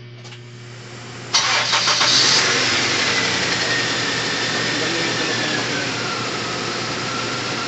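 Toyota 4A-FE four-cylinder engine cranked and catching about a second and a half in, then running at a fast idle that settles down, a high whine falling in pitch as the revs drop. It runs after its timing belt and cam sub-gear were reset, and the sound is now called much changed and normal.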